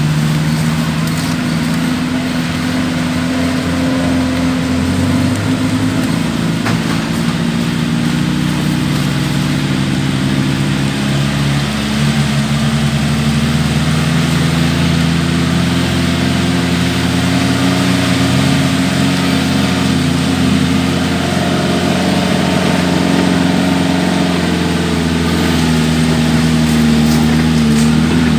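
Off-road 4x4 engine running steadily at low revs, its pitch drifting slowly up and down.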